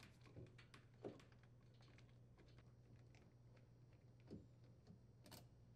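Near silence with faint, scattered light clicks of a screwdriver working a mounting-bracket screw out of the dishwasher's bracket under the countertop, over a faint steady low hum.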